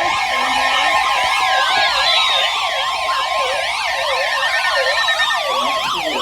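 Several weather radio receivers sounding their alert alarms at once for an Emergency Alert System flash flood warning. Their overlapping warbling, siren-like tones sound together, with a steady tone under them for about the first half.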